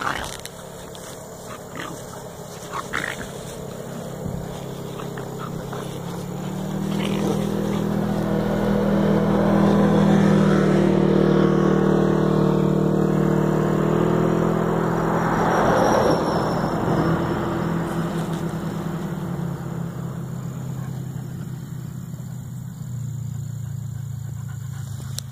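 A motor vehicle's engine approaching and passing along the road: its hum swells over several seconds, drops in pitch as it goes by, then fades away.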